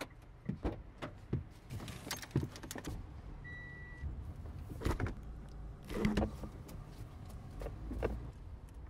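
Car-interior handling noises: a run of clicks and knocks as the driver gets into his Mitsubishi, with keys jangling. About three and a half seconds in comes a single short electronic beep. After that a low steady engine hum runs under a few more thumps.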